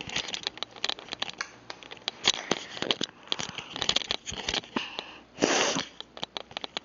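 Irregular clicking and rustling handling noise, with a short breathy burst a little past five seconds in.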